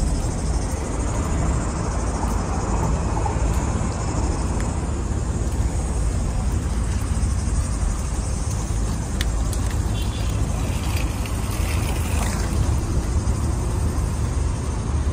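Steady low rumble of wind buffeting a phone's microphone outdoors.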